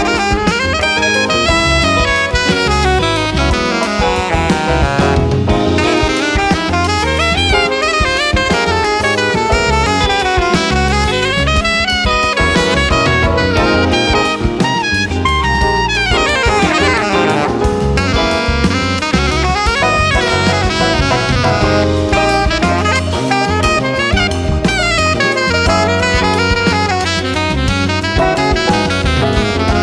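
Jazz quintet playing live: saxophone out front with quick, winding lines over piano, guitar, bass and drum kit. A fast sweeping run sounds about halfway through.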